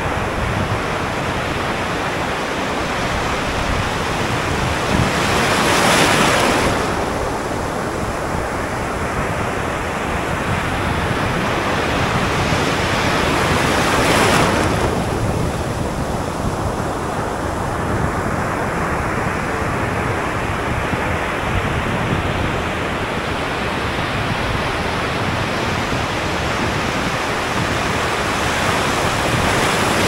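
Ocean surf washing over the shallows at the waterline, right at the surface: a continuous hiss of foam and breaking waves, swelling louder about six and fourteen seconds in and again at the end as a wave breaks over the camera.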